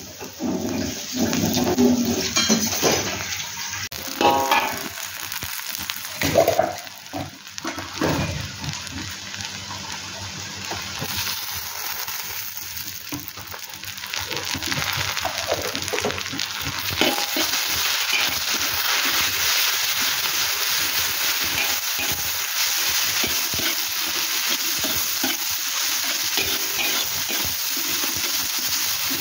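Oil sizzling in a wok around sliced onions, with a metal spatula scraping and knocking on the pan. About halfway through, chilli paste goes into the hot oil and a steady, louder sizzle takes over as it is stirred.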